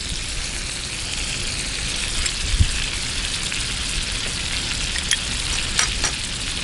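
Salmon fillets in butter sizzling steadily in a hot cast iron skillet, with a few light clicks near the end.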